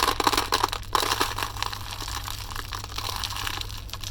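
A container of small salvaged silver-alloy electrical contacts being handled: a dense clatter of small metal clinks, loudest in the first second and settling to a lighter rattle.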